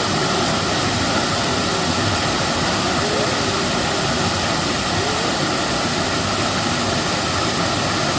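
Waterfall: water falling and rushing in a continuous, even roar with no breaks.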